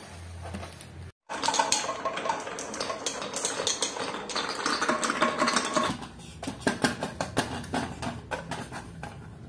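Many marbles rolling and clattering around a wooden spiral marble-run track, a dense rattle of overlapping clicks. About six seconds in it thins to sparser, separate sharp clicks and knocks.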